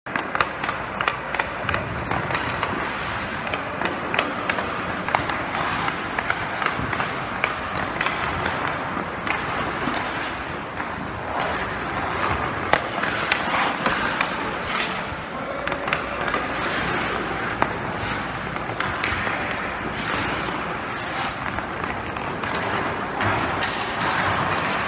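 Ice skate blades scraping and carving on rink ice, with many sharp clacks of hockey sticks on pucks scattered throughout.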